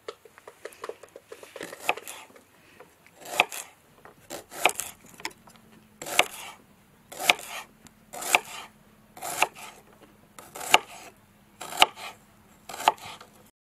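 Kitchen knife slicing a red onion on a wooden cutting board: a quick run of light taps at first, then about nine slow, even cuts roughly a second apart, each ending in a sharp knock of the blade on the board.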